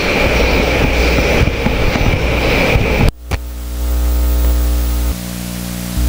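Several people sitting down at a long table: chairs moving, small knocks and rustling over a steady hiss with a faint high whine. About three seconds in this cuts off abruptly, and steady held tones of background music take over.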